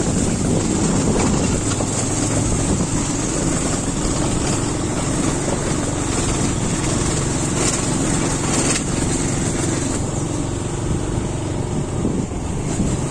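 Motorcycle engine running steadily while being ridden, heard from the rider's seat, with a constant wash of road and wind noise.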